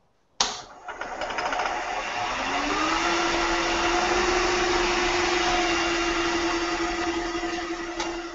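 Wood lathe spinning at about 1800 rpm while a turning tool cuts a small square cocobolo duck-call blank on a pin chuck down to round. The cutting noise starts suddenly just under half a second in, a steady hum settles in after about three seconds, and it fades near the end.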